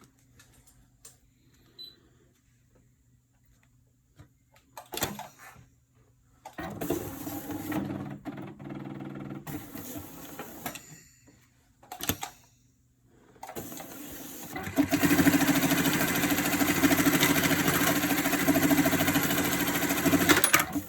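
Brother BAS-326H-07A industrial pattern sewer running a demonstration cycle: a few clicks and clunks, a shorter mechanical run, then about six seconds of rapid, loud high-speed stitching that stops abruptly near the end.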